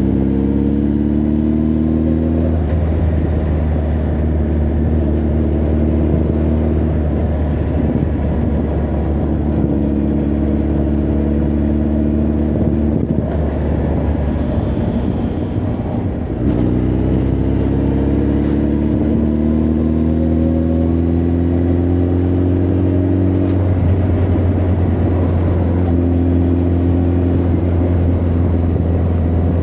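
Honda CB1300 Super Bol d'Or's inline-four engine and exhaust under way, heard from the rider's position. It pulls up in revs at the start, holds a steady cruise, eases off briefly about halfway, then climbs in revs again for several seconds before settling into a steady cruise.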